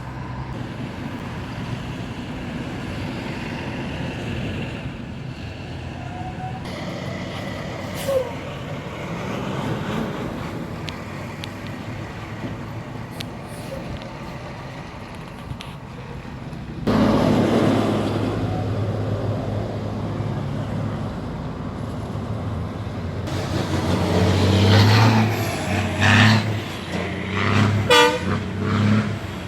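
Road traffic passing: a heavy truck's engine gets loud about halfway through, and there are horn toots and engine pulses near the end.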